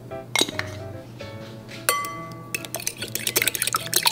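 A utensil clinking against a glass bowl, two single ringing clinks, then from about two and a half seconds in a fast run of clinks as raw eggs are beaten in the bowl.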